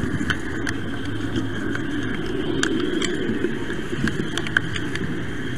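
Model train running along its track, heard from a camera riding on board: a steady running rumble from the motor and wheels, with scattered sharp clicks from the wheels on the rails.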